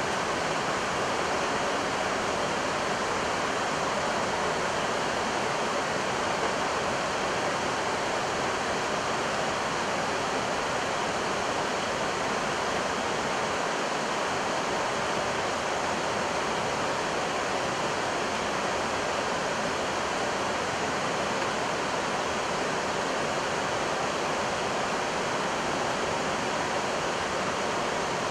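Steady rush of airflow noise on the flight deck of an Airbus A320 descending with its engines at idle thrust, even and unbroken throughout.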